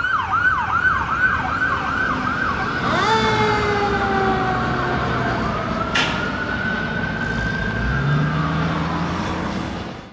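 Emergency vehicle siren sounding in a fast yelp, about four rises and falls a second, then switching about three seconds in to a slower wail with long rising and falling sweeps. A single sharp click sounds about six seconds in.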